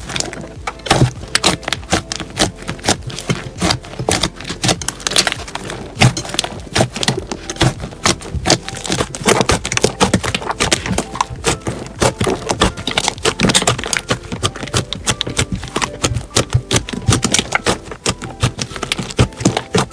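Slime being squeezed and pressed by hand, giving a dense, irregular run of sharp crackles, clicks and pops.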